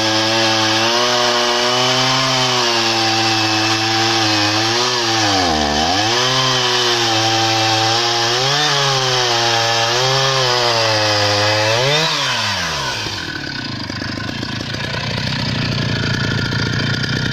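Husqvarna 480 CD two-stroke chainsaw, freshly rebuilt with a new cylinder and piston, running at high revs while cutting through logs, its pitch dipping and recovering several times under load. About twelve seconds in it drops off to a lower, quieter idle.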